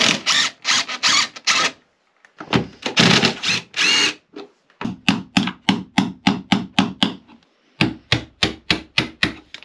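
A DeWalt 18V cordless driver runs in short bursts to undo clamp nuts. About halfway in, a hammer starts knocking in a steady series of blows, about three or four a second, pausing briefly before carrying on.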